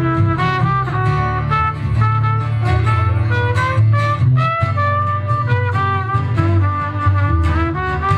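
Live small band playing an instrumental break between verses: a lead melody instrument carries the tune, sliding between held notes, over a steady bass and rhythm accompaniment.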